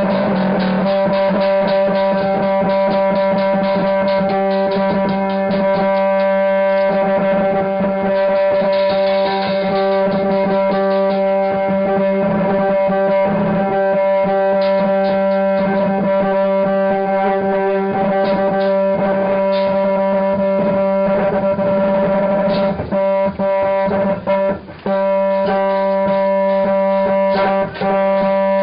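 Loud live noise music: one steady droning tone with many overtones, held throughout under a dense crackle of rapid clicks. The sound briefly drops out a few times near the end.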